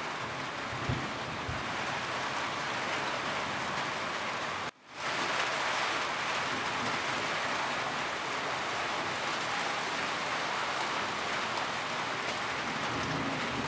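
Steady rain falling on a roof, a dense even patter. About five seconds in it cuts out for a moment and fades straight back in.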